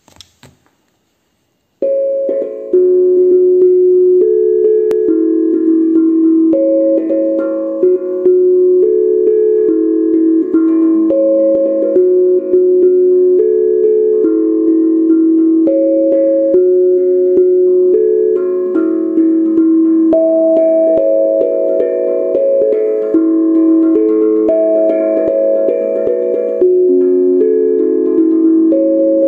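Steel tongue drum tuned to A major pentatonic at A = 432 Hz, struck with soft mallets: a flowing melody of ringing, overlapping notes that starts about two seconds in.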